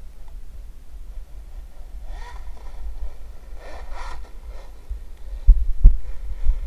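Battery-powered SkeeRide RC snowmobile, electric motor and belt drive, whining up in pitch in two short bursts of throttle, about two and four seconds in, over a steady low rumble. Two heavy low thumps come close together near the end and are the loudest sounds.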